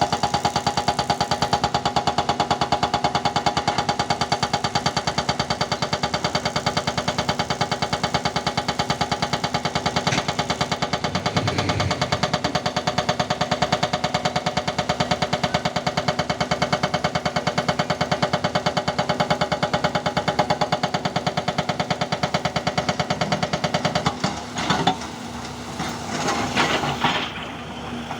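JCB digger's diesel engine running with a fast, even throb. About 24 seconds in the steady running gives way to a quieter, uneven sound with a few knocks.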